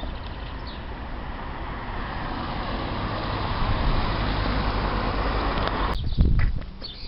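A car passing on the road, its tyre and engine noise slowly growing louder. About six seconds in the sound cuts off abruptly and a few low thumps follow.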